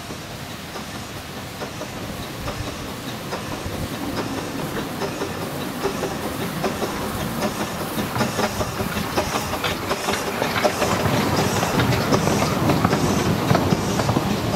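Baguley 0-4-0T narrow-gauge steam tank locomotive approaching and running past with its wagons, growing steadily louder. A regular clicking beat of about two a second comes through as it draws near.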